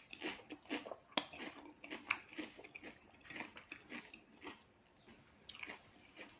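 Close-miked chewing of a vegetable salad: irregular wet crunches and clicks of the mouth biting and chewing leaves. There are two sharper crunches in the first couple of seconds and a short lull about five seconds in.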